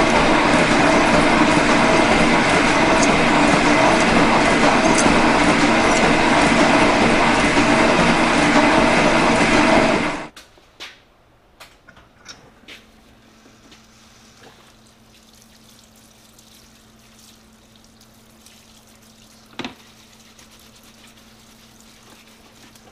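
G&E metal shaper running and cutting aluminium bar stock, a loud steady machine noise that cuts off abruptly about ten seconds in. After it, a parts washer's pump hums quietly while solvent runs from its nozzle over the part being scrubbed, with a few clicks of handling.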